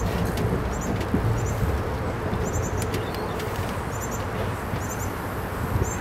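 Steady rushing outdoor background noise, with faint, quick high chirps in little groups of three, repeating every half second to a second.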